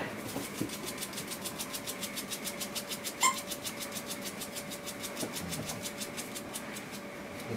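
A Frenchton puppy scratching at its new collar with a hind leg: a fast, even scratching rhythm of about six or seven strokes a second. A short high squeak comes about three seconds in.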